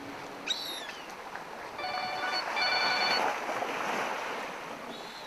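Mobile phone ringtone, two short bursts of electronic tones a couple of seconds in, over a steady wash of wind and sea on the rocks.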